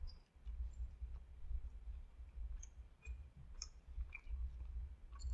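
A person chewing a mouthful of crispy chicken sandwich: faint soft mouth clicks and smacks, scattered and irregular, over a low steady background rumble.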